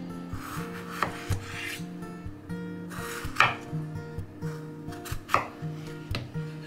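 Chef's knife cutting a raw potato into chunks on a wooden chopping board: slicing through the flesh and about five knocks of the blade on the board, the loudest about halfway and near the end. Soft acoustic background music plays underneath.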